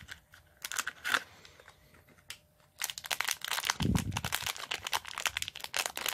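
Small shiny foil blind bag crinkling as it is drawn out of its little cardboard box and handled in the fingers. A few light rustles and card taps come first, and the crinkling turns dense and continuous about three seconds in, with one soft low thud near the middle.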